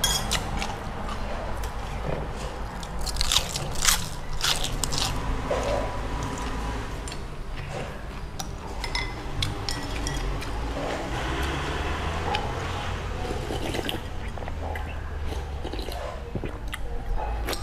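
Eating noodles from a ceramic bowl: a metal spoon and chopsticks clicking and scraping against the bowl, with chewing, several quick clicks a few seconds in. Near the end the bowl is lifted and the broth drunk straight from it.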